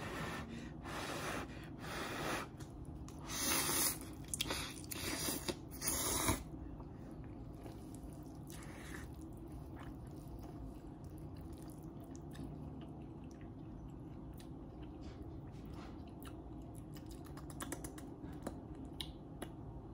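A person slurping in a big mouthful of saucy noodles, several loud slurps over the first six seconds or so, then chewing it, quieter, with faint wet clicks.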